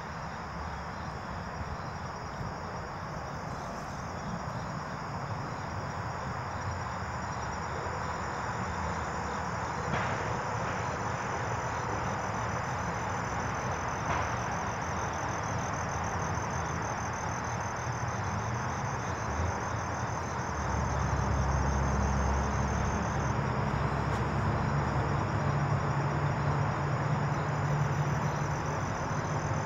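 Crickets trilling steadily in a high, pulsing chorus. A low rumble comes in about two-thirds of the way through.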